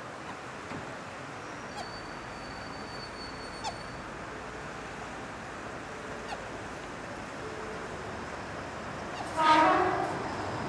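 Steady outdoor background noise with a few faint chirps, then one loud pitched call or blast, under a second long, near the end.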